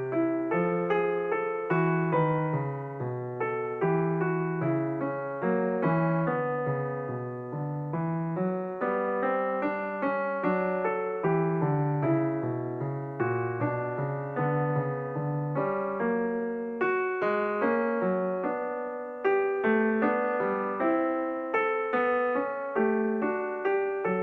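Solo piano music: notes struck about twice a second, each ringing and fading, with no break.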